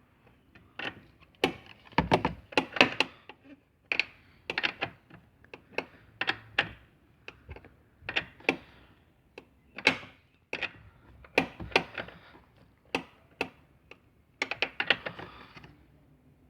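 Wrench and metal parts clicking and knocking as the loose door bolt of a Fiat Palio is refitted and tightened. The clicks come irregularly, sometimes singly and sometimes in quick clusters.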